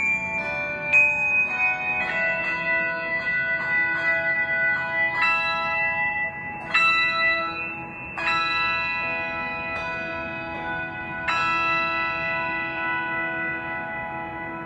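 Handbell choir ringing slow chords, each struck over the ringing of the last. The final chord, about eleven seconds in, rings on and fades away.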